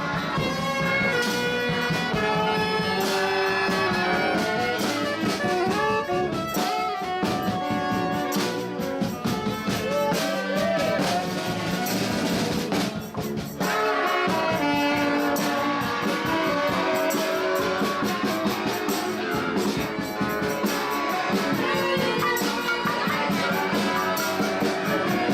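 Brass band playing, with horns (trumpet, saxophone, trombone) over a regular percussion beat. The music briefly thins out about halfway through, then carries on.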